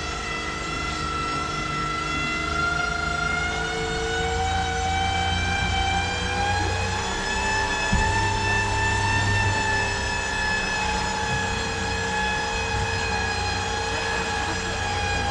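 Glass-bottom tour boat's motor running as the boat cruises: a steady whine that climbs slowly in pitch and eases back, over a low hum. A single sharp knock about halfway through.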